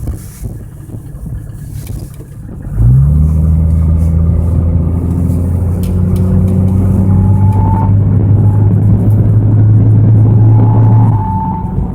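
Mercedes-Benz S124's strange noise of a cold car: over a low running rumble, a loud low hum sets in suddenly about three seconds in and holds steady, easing a little near the end, with a faint high whistle coming and going in the later seconds.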